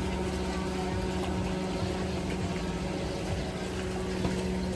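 A car idling: a steady engine hum with a low rumble underneath.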